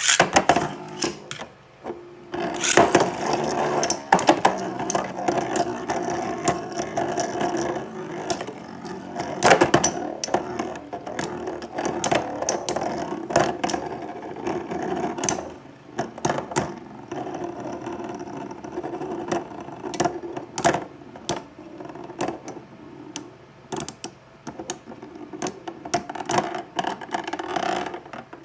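Two metal Beyblade spinning tops, Rock Leone 145WB and Lightning L-Drago HF100, spinning and colliding in a stadium: a steady whir with many sharp metallic clashes at irregular intervals.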